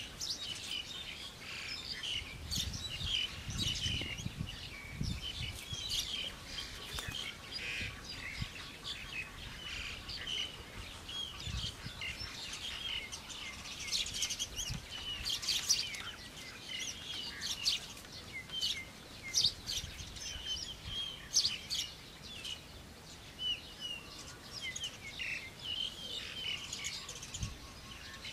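Wild birds chirping and singing continuously in a dense chorus of short, quick calls. A few soft low thuds in the first several seconds come from wet mud being pressed by hand onto the bamboo wall.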